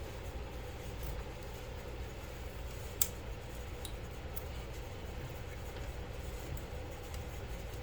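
Hands working on a PC build: a few faint ticks of handling, and one sharp click about three seconds in as a 12-pin high power connector is pushed into the graphics card, over a steady low room hum.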